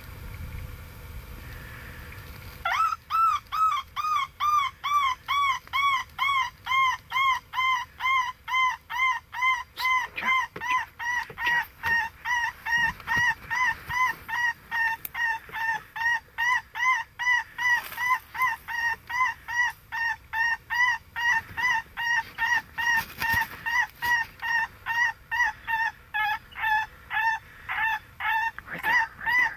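Predator call sounding a high-pitched distress cry over and over, about two cries a second, each cry rising and then falling in pitch, starting about three seconds in; the call is used to lure coyotes in.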